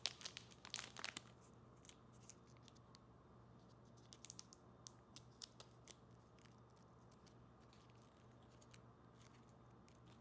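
Faint crinkling and crackling of plastic packaging as new propellers are taken out: a busy patch for about the first second, then scattered light crackles.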